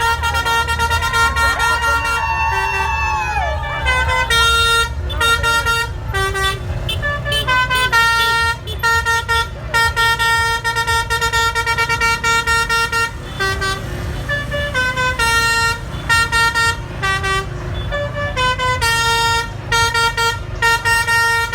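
Basuri telolet musical air horn on a bus playing a tune in short notes that step up and down in pitch. A low engine rumble runs underneath.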